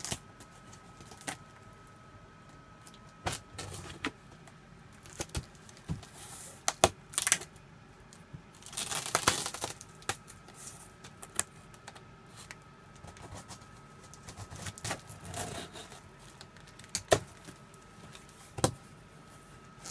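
A cardboard shipping box being unsealed by hand: packing tape tearing and peeling away, with scattered taps, scrapes and knocks on the cardboard and one longer tearing rasp about nine seconds in.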